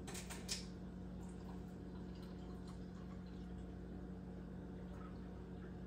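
Steady low electrical hum, with a few light clicks in the first half-second.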